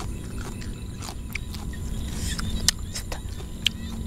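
Rice-field ambience after rain: a low steady rumble under scattered short, sharp clicks and chirps, small paddy frogs (khiat) calling.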